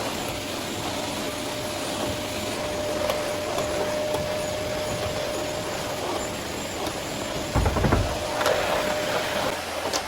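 Vacuum cleaner running steadily, a rushing noise with a held whine, with a low bump about three-quarters of the way through and a few light clicks.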